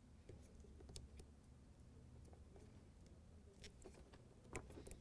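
Faint, scattered plastic clicks and ticks as a red insulation-displacement splice connector is squeezed shut with pliers to join two wires and its cover snapped closed, the clearest clicks near the end.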